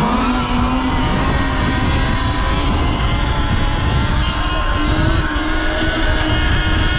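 Surron Ultra Bee electric dirt bike under way: a motor whine climbs in pitch in the first second and then holds steady, rising slightly again about five seconds in, over a heavy, steady low rumble.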